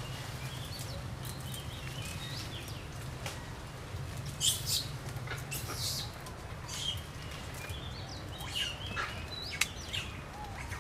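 Small birds chirping, with many short high calls scattered throughout and two louder, harsher bursts about four and a half and six seconds in, over a steady low hum.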